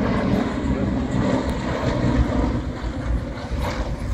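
Rally car engine noise, a steady low rumble with no clear revving.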